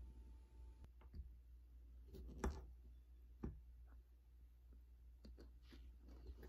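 A few faint, separate clicks of a metal fork against a ceramic plate, the sharpest about two and a half seconds in and another a second later, over quiet room tone.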